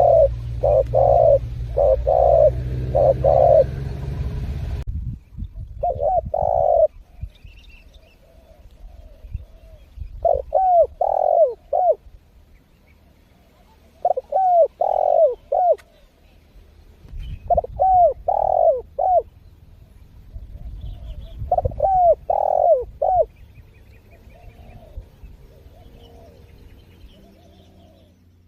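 Spotted dove cooing in repeated phrases of a few rolling coos each. A low hum lies under the first few seconds and cuts off suddenly, after which the phrases come singly about every four seconds, with fainter coos between them.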